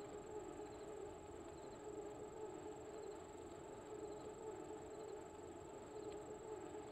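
Faint steady hum with a constant thin high-pitched whine above it, unchanging throughout.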